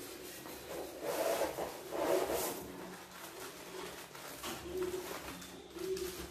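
Cardboard carton and packing being rubbed and scraped by hands as a boxed soundbar is unpacked, with two louder rustling scrapes about one and two seconds in and softer handling after.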